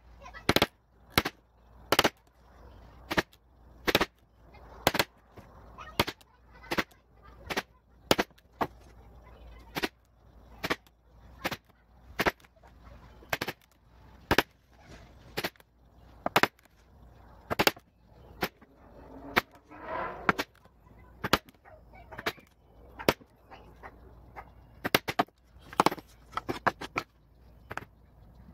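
A mallet striking a hole punch through leather, punching a row of stitching holes: sharp knocks about once or twice a second, sometimes two in quick succession.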